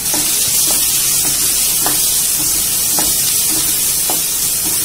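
Chopped onions, green chillies and curry leaves sizzling in hot oil in a nonstick kadai while a spatula stirs them, with a few short knocks and scrapes of the spatula against the pan.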